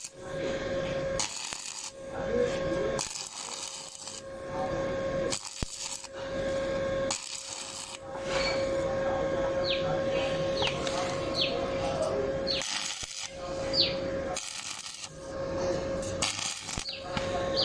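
Metalworking noise from fabricating a steel box-bar gate, with metal clinking and scraping in short segments that change abruptly several times.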